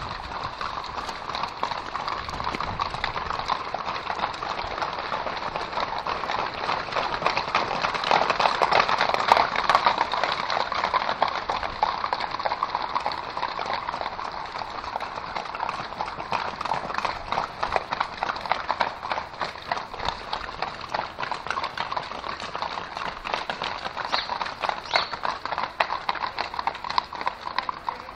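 Hoofbeats of a group of loose horses running along a wet tarmac street. The rapid, overlapping hoof strikes are loudest about a third of the way through and thin out toward the end as the horses pass.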